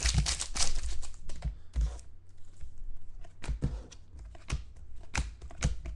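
Foil trading-card pack wrapper crinkling and stiff football cards clicking and tapping against each other as they are pulled from the pack and handled: a run of irregular sharp clicks, densest in the first two seconds, then scattered.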